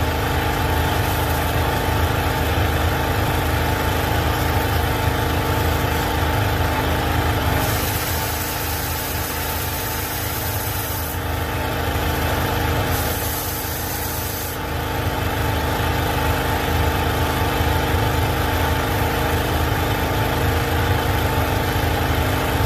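Engine of an Easy Kleen Magnum 4000 hot-water pressure washer running steadily under load, driving its pump. Over it comes the hiss of water jets from a Mosmatic flat surface cleaner working over concrete; the hiss brightens for two stretches in the middle.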